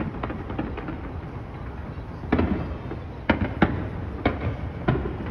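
Fireworks display going off: a steady low rumble with faint crackling, then five sharp bangs spread over the last three seconds.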